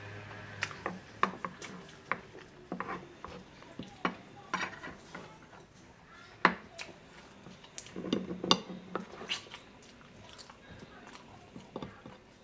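Close-miked eating sounds: irregular chewing and lip smacks, with scattered sharp clicks of cutlery and dishes, busiest about eight to nine seconds in.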